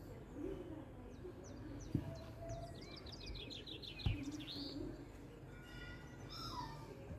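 Birds chirping in the background in quick high trills, with a falling whistled call near the end. Two dull knocks come about two and four seconds in as the bowl and plate are handled on the table.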